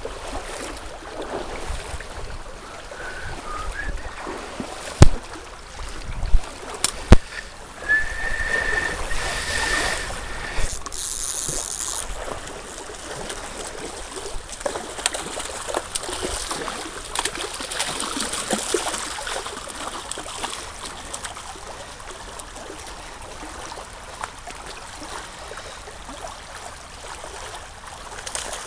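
Shallow trout stream running over stones, with a few sharp knocks about five to seven seconds in and a brief steady high tone around eight to ten seconds.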